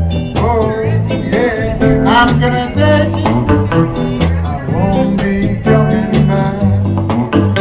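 Live acoustic trio playing a song: a strummed acoustic guitar, a hollow-body electric guitar and an upright double bass plucking steady low notes.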